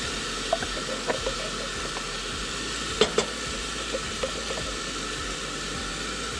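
Onion and mushrooms sizzling steadily in a metal pot on a portable gas stove while tinned tomatoes go in and are stirred with a wooden spoon. The spoon knocks against the pot now and then, twice sharply about three seconds in.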